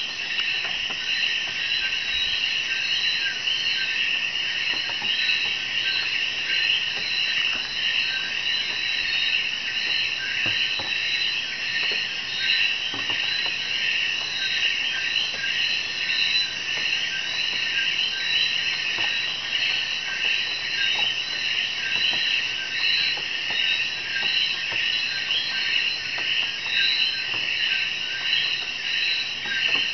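Dense nighttime chorus of frogs and insects: a steady, unbroken mass of many quick overlapping high chirps and trills.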